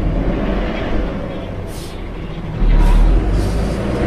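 Front-engined Yangtze River city bus engine running with a deep, steady rumble that gets louder about two and a half seconds in, as the bus pulls harder. A few short hisses sound over it.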